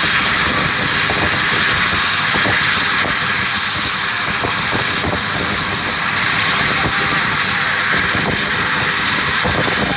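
A California Highway Patrol helicopter running steadily up close: a loud, even rush of engine noise with a thin high whine and rapid rotor chop.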